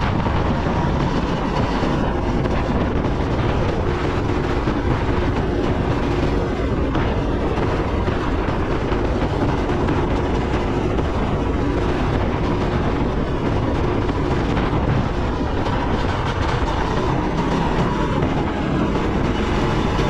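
Go-kart engine running steadily under throttle, heard onboard with rattling from the chassis and wind noise as the kart laps the track.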